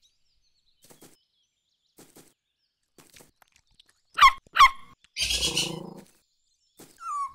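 Cartoon puppy giving two quick high yaps that drop in pitch, followed by a short rushing whoosh sound effect and a brief whine near the end.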